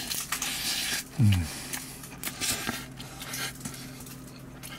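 A thin plastic kimbap wrapper crinkling as it is handled, a short falling 'mm' from the voice about a second in, then scattered soft crackles over a steady low hum.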